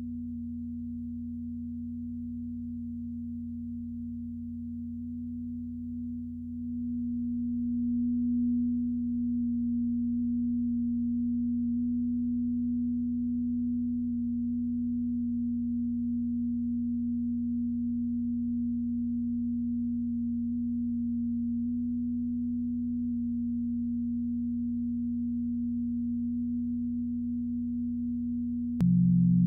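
Minimalist experimental drone music: a steady, sustained low tone held over a deeper hum, swelling slightly a few seconds in. Near the end it shifts abruptly to a louder, lower tone.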